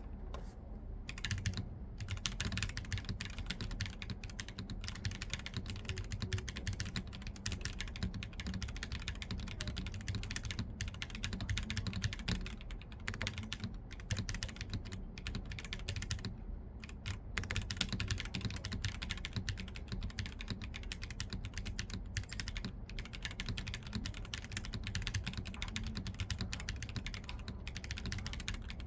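Typing on a Ciel65 aluminium-case 65% mechanical keyboard with lubed K-Techs S1 Peaches switches on a polycarbonate plate, O-ring mounted, with Hammerworks CRP R5 keycaps: a steady run of keystrokes with short pauses about a second in and around sixteen seconds in, over a low steady hum.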